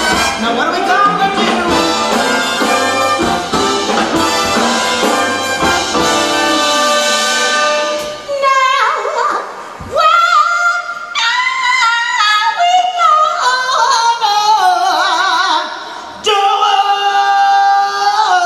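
Female jazz vocalist singing live with a big band. About eight seconds in the band drops out and her voice carries on alone in free, sliding phrases, and near the end she holds a long note with vibrato.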